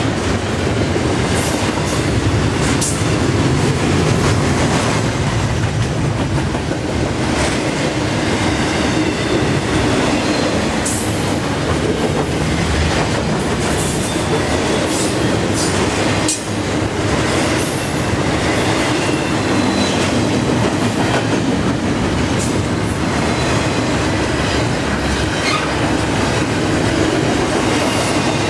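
Long intermodal freight train's well cars rolling past at speed: a steady loud rumble of steel wheels on rail, with frequent clicks as wheels cross rail joints and faint wheel squeal coming and going.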